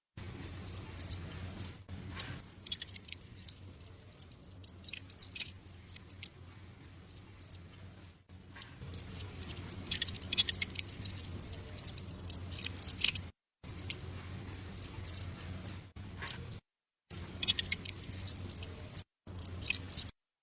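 Hand work on small metal parts: irregular clicks, taps and light scrapes over a low steady hum, in short clips that cut off abruptly several times.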